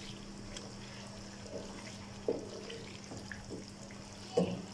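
Wooden spatula stirring fried boiled eggs through thick, oily masala in a nonstick pan: soft wet scrapes and a few knocks, the loudest near the end, over a steady low hum.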